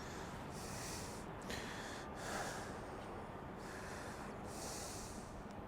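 A man breathing heavily through the nose close to the microphone, several breaths in a row.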